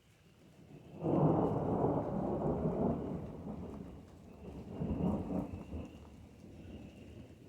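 A roll of thunder. The rumble builds and jumps up sharply about a second in, eases off, swells again about five seconds in, then dies away.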